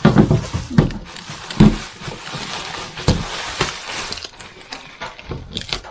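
Scattered knocks, clicks and rattles from a new washing machine and its loose parts being handled.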